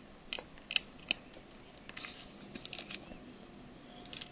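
Faint, scattered light clicks and taps of small iPhone 5 parts being pressed and adjusted in the phone's housing.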